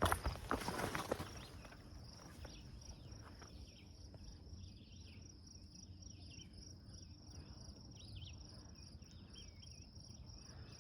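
Steady high-pitched chorus of insects such as crickets, trilling without a break. Footsteps on the trail are heard in the first second or so.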